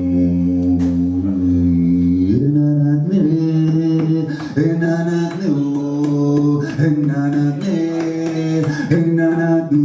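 A man's wordless vocalizing into a microphone: a held low droning tone, then about two and a half seconds in, a chanted line of sliding, changing pitches with no words.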